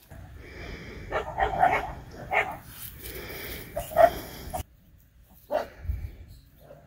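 Bulldog puppies barking and yipping as they play-fight, in short bursts about a second in, around two and a half seconds, at four seconds and twice more near the end. A low rumbling noise runs under the first calls and cuts off suddenly about four and a half seconds in.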